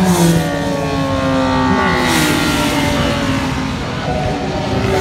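Classic racing motorcycles at speed passing close by one after another, each engine note dropping in pitch as the bike goes by and away: one right at the start, one near the middle and another near the end, with more engines running in the distance in between.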